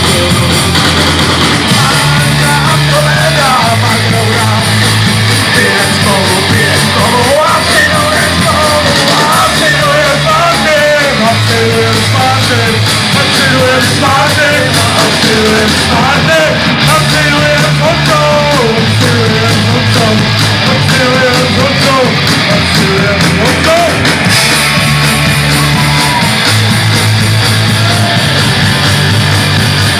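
Rock band playing live, loud: an instrumental stretch with a wavering lead melody over a bass line that changes note every couple of seconds, and steady drums.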